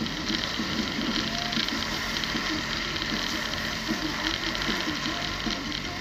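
Steady dense rattling and clicking with road noise from a vehicle driving along a sandy beach, heard from a camera mounted on its side.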